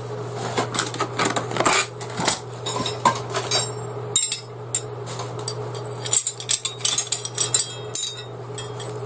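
Steel pegs clinking and knocking against one another as they are handled, a quick irregular string of sharp metallic clicks with short pauses.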